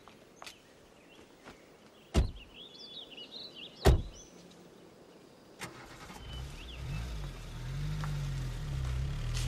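Two car doors shut, a second and a half apart, with birds chirping, then a car engine starts about halfway through and runs, getting louder toward the end.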